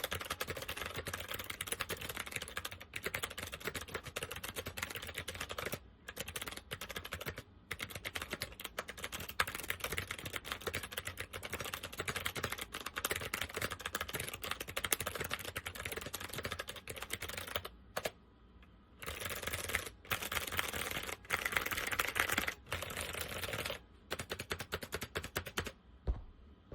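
Fast typing on an SMK 2269 keyboard with second-generation SMK clicky switches: a dense, continuous run of sharp clicks, with a few brief pauses and a longer one about two-thirds of the way in. The switches are in less than great condition and not cleaned.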